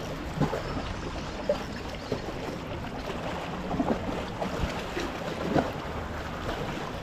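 Lake water lapping against shoreline rocks with wind on the microphone, and a few short light knocks and splashes.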